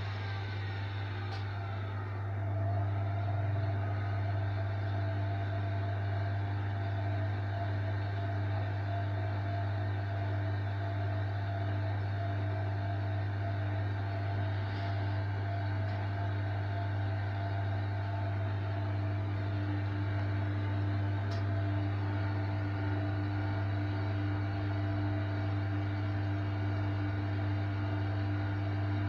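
Hoover Electronic Automatic de luxe washing machine on spin: a steady motor hum with a whine that falls in pitch over the first couple of seconds, then holds steady as the drum runs at spin speed.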